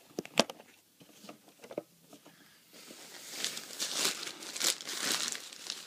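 A couple of sharp taps near the start, then thin nylon fabric of a stuff sack rustling and crinkling for about three seconds as it is picked up and handled.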